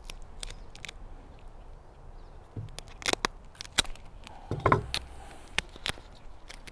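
Duct tape peeling off its roll and crackling as it is wound around clear vinyl tubing, with a few louder clicks and a dull knock between about three and six seconds in.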